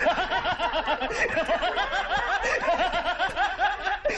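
A group laughing together in quick, repeated 'ha-ha' pulses, several voices overlapping without a break.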